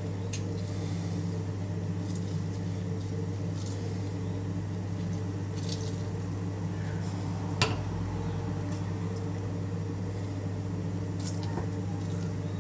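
Hand squishing and tossing chopped salsa in a stainless steel bowl: soft wet squelches and light ticks over a steady low hum, with one sharp click a little past halfway.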